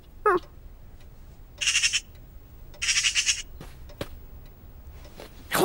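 Cartoon magpie sounds: a short bending call just after the start, then two harsh, hissing rasps about a second apart.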